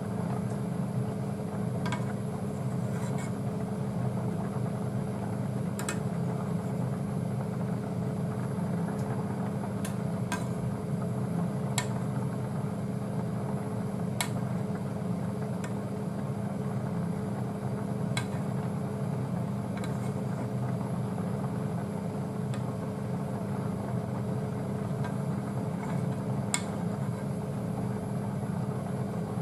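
Steady hum of a kitchen fan, with a few light clicks of a metal ladle tapping a stainless steel bowl as scum is skimmed from the simmering soup.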